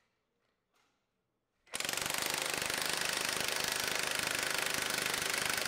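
Milwaukee 2868-20 cordless 1-inch D-handle impact wrench hammering continuously on a torque dyno through a 1-inch to 3/4-inch impact reducer adapter, a 5-second working-torque run. The rapid, even hammering starts about a second and a half in, after a few faint clicks.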